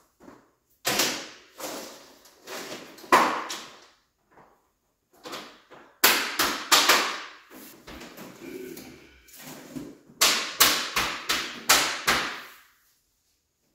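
Interlocking plastic Ribtrax Smooth Pro garage floor tiles being snapped and knocked together into place: irregular groups of sharp knocks and clicks, with a quick run of them around the middle and another near the end.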